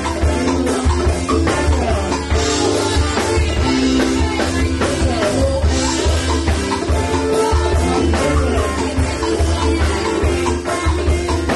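Live band music with electric guitar and drum kit, playing a steady beat over a heavy, pulsing low end.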